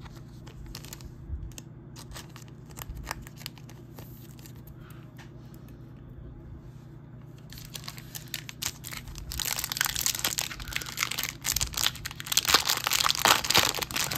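Light clicks and taps of cards being handled, then from about halfway through a Topps Chrome F1 trading-card pack wrapper crinkling and tearing open, growing louder toward the end.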